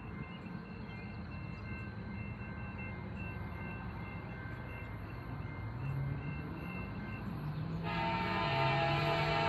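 Railroad crossing bell dinging faintly at first as a train approaches. Near the end a locomotive air horn blows loudly, a chord of several tones that starts abruptly.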